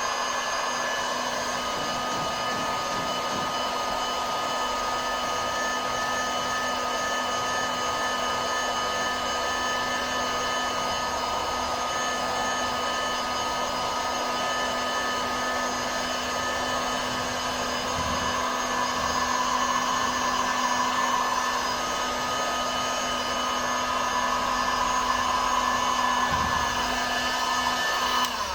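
An electric motor running steadily: a constant hum with a higher whine over a rushing noise, swelling slightly twice in the second half.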